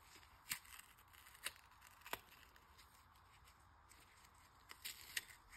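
Faint crackling snaps of an oil-soaked pleated paper oil-filter element being pulled apart by gloved hands. There are a few separate snaps about a second apart, then a quick cluster near the end.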